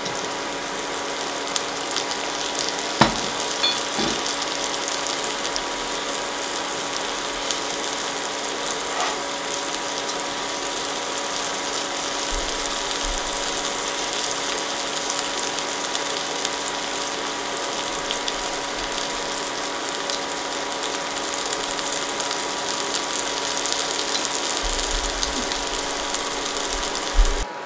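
Eggs frying in hot oil in a non-stick wok with onions and cherry tomatoes, a steady crackling sizzle, over a steady hum. A couple of sharp knocks about three and four seconds in.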